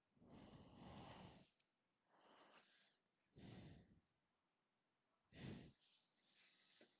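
Faint breathing close to a microphone: several soft breaths in and out, otherwise near silence.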